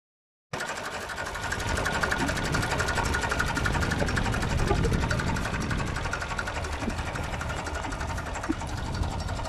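IMT 533 tractor's three-cylinder diesel engine running steadily, with a fast, even pulsing beat. The sound starts about half a second in.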